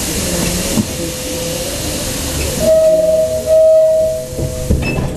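Inside an electric bus at a stop: a long hiss of compressed air, then a loud steady electronic tone of about two seconds with a brief break, over a steady lower hum.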